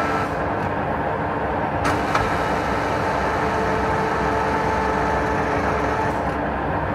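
TOS SUS 63 heavy lathe running, its geared drive giving a steady mechanical hum with several pitched whining tones. Two sharp clicks come about two seconds in, after which the whine settles onto a slightly different pitch.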